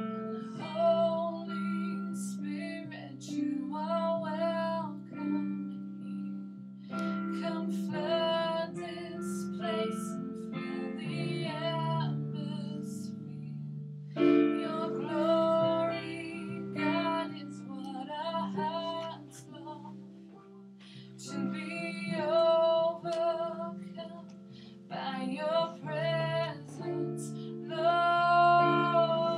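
A woman singing in phrases with short pauses between them, accompanying herself on a Korg electronic keyboard that holds sustained chords underneath.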